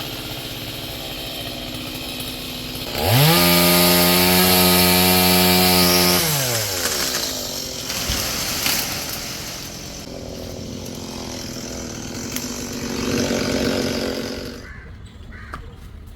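Two-stroke chainsaw running, then revved sharply to full throttle about three seconds in and held there for about three seconds before dropping back. It runs at lower speed after that, swells again briefly near the end, and cuts off just before the end.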